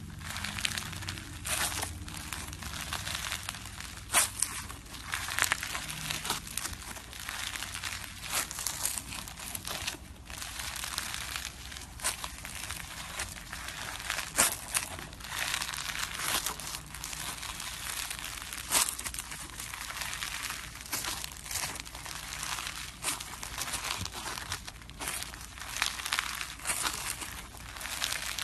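Slime being squeezed and worked by hand, making a steady, irregular crackling and crinkling with many small sharp pops.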